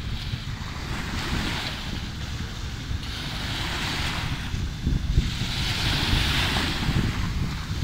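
Sea waves washing in, a hiss that swells and fades every two seconds or so, with wind buffeting the microphone as a steady low rumble.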